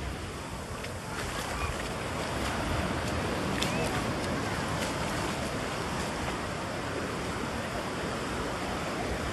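Ocean surf breaking and washing up the sand in a steady rush, swelling a little over the first couple of seconds.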